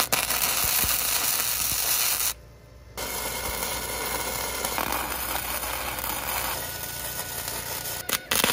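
Wire-feed (MIG) welding arc crackling and hissing as a bead is laid on steel, stopping for under a second about two seconds in and then running again for about five seconds. A few sharp clicks follow near the end as the gun is lifted.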